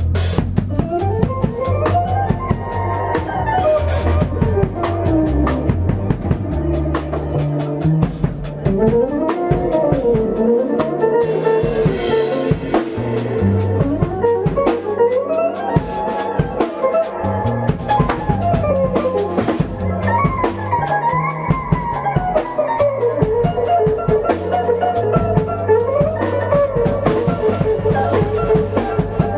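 Live jazz jam: a semi-hollow electric guitar solos in fast picked runs that climb and fall, over a drum kit and electric bass keeping a 9/8 groove.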